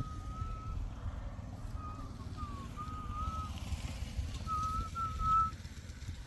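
A person whistling a wavering tune in several short phrases, over a low steady rumble.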